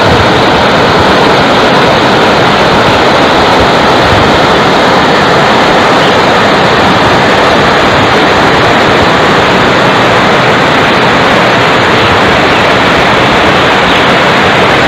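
Loud, steady rushing noise of a vehicle on the move, road and wind noise with no breaks or distinct events.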